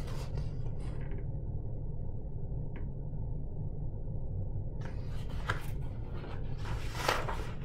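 Paper rustling and rubbing as a paperback picture book is handled and its page turned, starting about five seconds in, over a steady low room hum.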